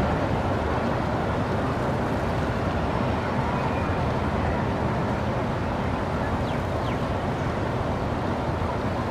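Steady outdoor background noise, an even wash with no distinct events, with a couple of faint short chirps about two-thirds of the way through.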